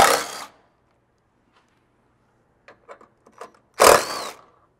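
Cordless power tool with a 13 mm socket spinning out the vertical bolts of a factory rock rail, in two short bursts: one at the start and one near the end. A few light clicks come between the bursts.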